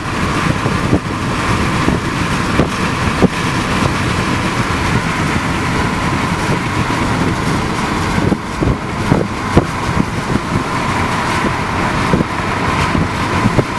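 Steady vehicle and road noise heard from inside a car, with scattered sharp knocks.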